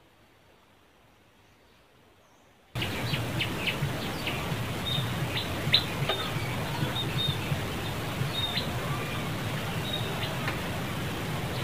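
Near silence for the first few seconds, then outdoor ambience cuts in abruptly: a steady low hum and hiss with many short, high bird chirps scattered throughout.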